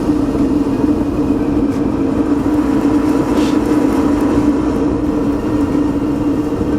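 Forced-air propane heater running with its burner lit: a loud, steady blend of fan and flame noise with a strong low hum.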